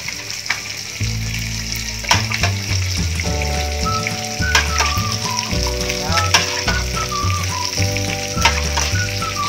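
A metal ladle scooping broth out of an aluminium pot, clinking and knocking against the pot rim and a glass bowl, over a steady hiss from the pot simmering on a portable gas stove. Background music with a stepping bass line plays throughout.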